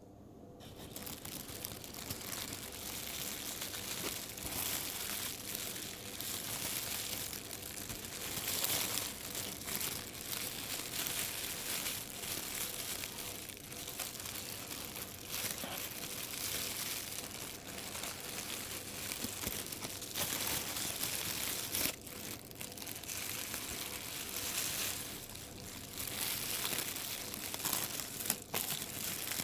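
Plastic bag being crumpled and crinkled by hand, a continuous crackling that swells and eases in irregular waves, with a few sharper crackles.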